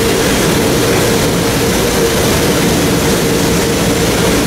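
Steady, loud drone of factory machinery, an even mechanical hum with a few constant held tones running through it.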